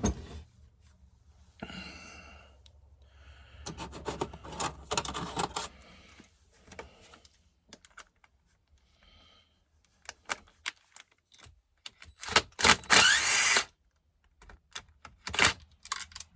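Clicks, clinks and rattles of hand tools and small metal parts as a Stihl MS 261 C chainsaw is taken apart, with a power driver whirring for about a second a little past two-thirds through.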